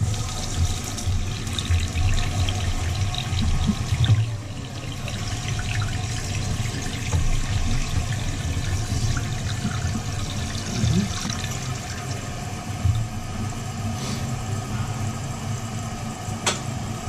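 Toilet tank filling through a newly installed fill valve: steady running water with a low rumble, and one sharp click near the end.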